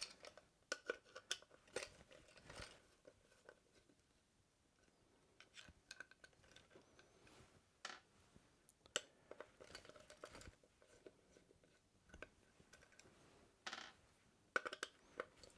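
Quiet, scattered clicks and light knocks of wooden boards being handled and repositioned, with a near-silent stretch about four seconds in and a quick run of sharper clicks near the end.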